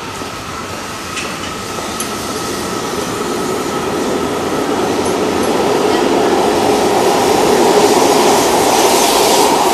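Yokohama Municipal Subway Green Line 10000 series four-car linear-motor train pulling out of the station. Its running noise grows steadily louder as it gathers speed past the platform.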